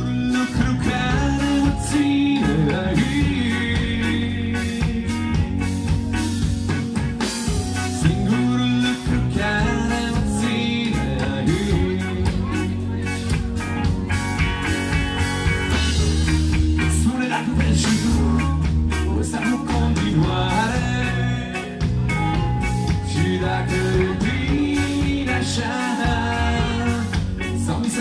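Rock band playing live through a club PA: distorted electric guitars, bass guitar and drums.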